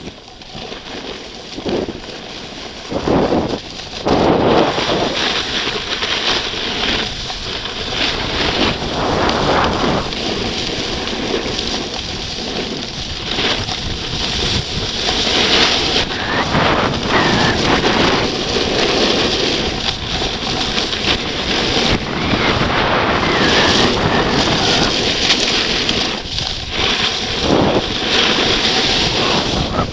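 Wind buffeting a skier's camera microphone during a run downhill, mixed with the hiss and scrape of skis sliding on packed snow. The noise surges unevenly and grows louder about four seconds in.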